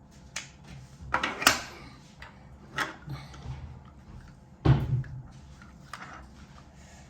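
Plastic toy pieces being handled and set down, giving a series of clicks and knocks with a heavier thump about five seconds in.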